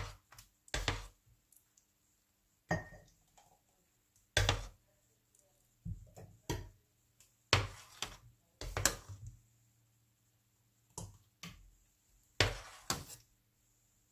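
Metal ladle clinking and knocking against a stainless steel pot while strawberry jam is ladled out into glass jars: about a dozen sharp knocks at irregular intervals.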